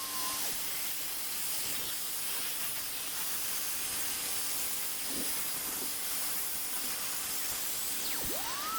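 A steady high-pitched hiss, with one whistled note near the end that rises quickly and then holds.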